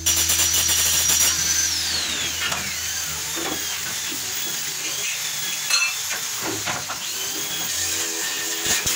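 Handheld angle grinder working a steel tube piece with a high whine, then switched off about two seconds in and winding down with a falling whine. Lighter metal scraping and a few knocks follow as the tube is handled.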